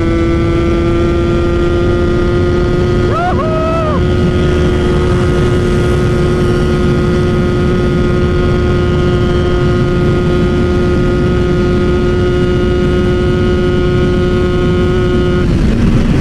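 Yamaha F1ZR's two-stroke single-cylinder engine with a KBRS aluminium slip-on silencer, running flat out near top speed. It holds one steady high note that barely changes for about fifteen seconds over wind rush, then drops sharply in pitch near the end.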